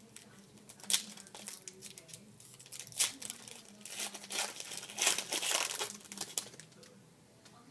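Foil wrapper of a football trading-card pack being torn open and crinkled, in irregular bursts of rustling: sharp ones about a second and three seconds in, then a longer stretch of crinkling from about four to six and a half seconds.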